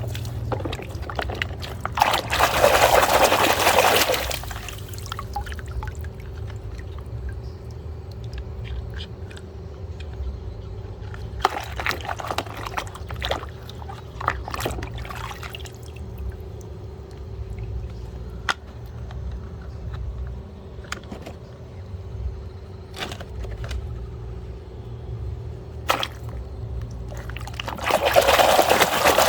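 Water pouring in two bursts, one about two to four seconds in and one near the end. Between them run a faint steady hum and scattered light knocks.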